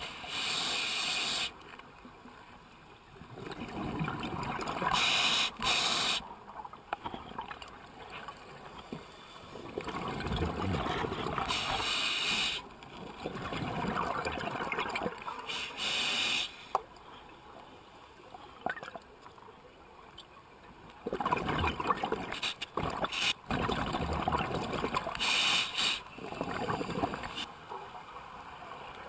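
Scuba diver breathing through a regulator underwater: a short hiss with each inhale, then a longer bubbling rush of exhaled air, repeating several times.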